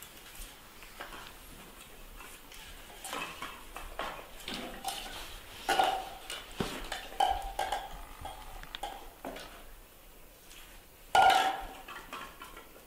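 Plastic baby bottle clattering, knocking and scraping on a tiled floor as a puppy noses and chews at it. Short squeaks come in between, the loudest about eleven seconds in.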